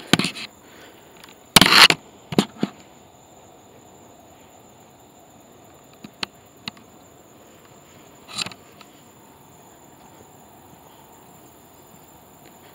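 Steady high trilling of night insects. Several loud, sudden noises break in over the first three seconds, the loudest just under two seconds in, and a few sharp clicks and a short burst come later.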